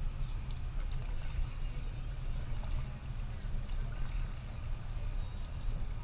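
Kayak paddling on open water: light splashes and drips from the paddle over a steady low rumble.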